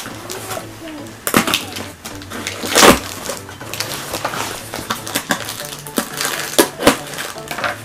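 A cardboard shipping box being cut open: a hand tool scraping through the packing tape and the cardboard flaps knocking and rustling. The sounds come as an irregular string of sharp scrapes and knocks, the loudest about three seconds in.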